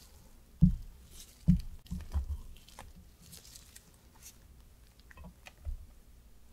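Silicone spatula scooping and folding thick whipped ganache cream in a glass measuring jug: soft squishing and scraping, with a few dull knocks, the loudest about half a second and a second and a half in.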